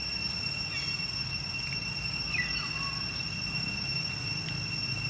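Steady high-pitched drone over a low rumble, with a faint falling squeak about two and a half seconds in.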